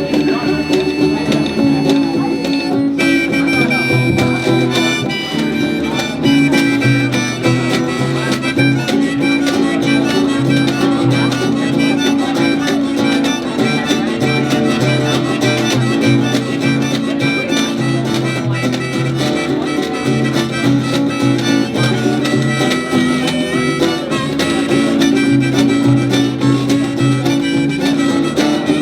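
Live jug band playing an instrumental break: a harmonica lead over strummed guitar, with a washtub bass and a washboard keeping the rhythm.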